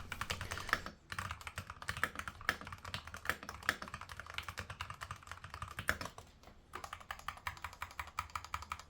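Typing on an Epomaker TH80-X mechanical keyboard with Gateron Black switches: a fast, uneven run of key clacks, with short pauses about a second in and again about six and a half seconds in.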